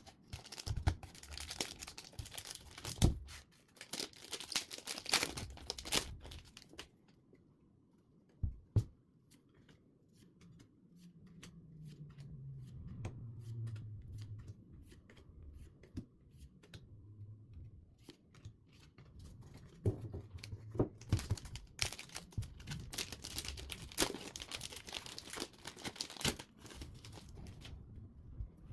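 Trading card packaging being torn open and crinkled by hand, in two bouts of dense crackling with a quieter stretch between them.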